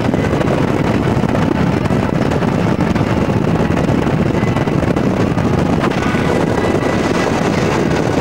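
Steady rush of wind and road noise in a moving car driving at speed, with wind buffeting the microphone.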